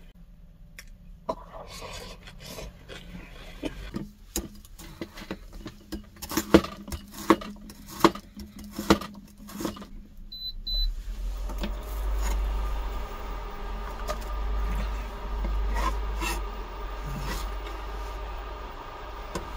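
Scraping and rubbing with a run of sharp knocks, loudest around the middle, then two short electronic beeps, after which a steady low appliance hum comes on and keeps running.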